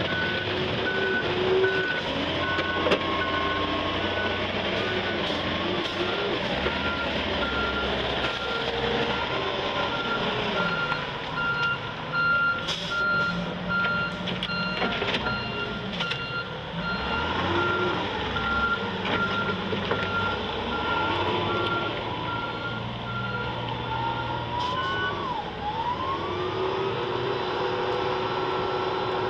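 Taylor GT 210 forklift plowing snow, its engine running with the pitch rising and falling, its reversing alarm beeping steadily a bit over once a second. The beeping stops a few seconds before the end.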